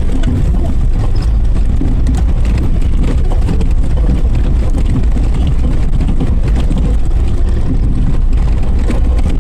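Suzuki Jimny 4x4 on the move, its engine and drivetrain giving a loud, steady low rumble.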